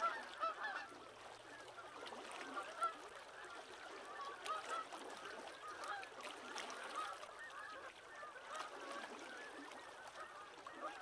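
A flock of waterbirds calling, with many short, overlapping honking calls in a constant chatter.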